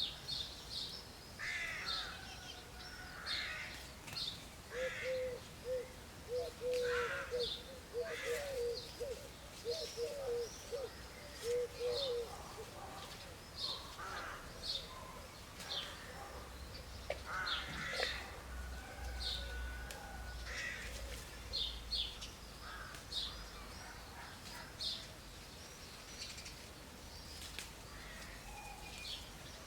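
Several birds calling outdoors: short high chirps throughout, some lower, longer calls, and a quick run of low notes from about five to twelve seconds in.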